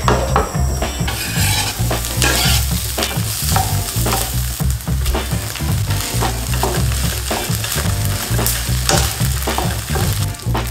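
Diced carrot, onion, ham and cooked rice sizzling in a non-stick frying pan while a wooden spatula stirs and scrapes them. The sizzle grows louder about a second in.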